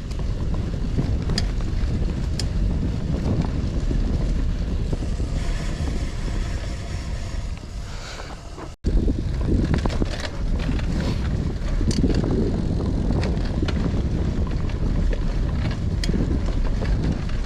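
Wind buffeting the microphone while riding a Cannondale CAADX cyclocross bike on a dirt trail, with steady tyre rumble and scattered sharp clicks and rattles from the bike. The sound cuts out for an instant about nine seconds in, then carries on.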